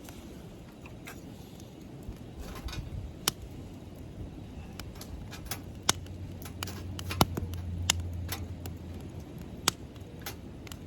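Wood campfire crackling: scattered sharp pops and snaps at uneven intervals over a low, steady background rumble.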